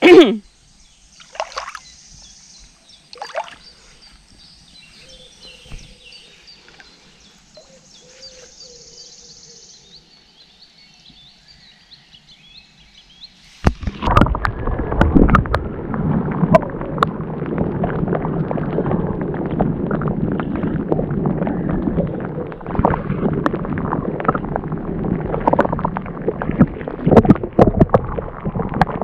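Faint outdoor quiet with a few small clicks, then about halfway through a sudden change to loud water sloshing and splashing close to the microphone, full of small crackles and splashes, as someone wades into a river.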